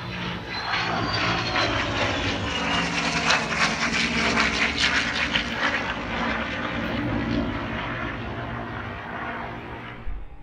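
Three Blue Angels F/A-18 jets passing in formation: the jet engine roar swells to a crackling peak about four seconds in and then fades away, with a high whine dropping in pitch as they go by.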